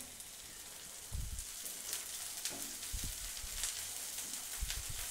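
Chopped broad beans and onions sizzling softly in hot oil in a non-stick pan, with a wooden spatula stirring and scraping a few times.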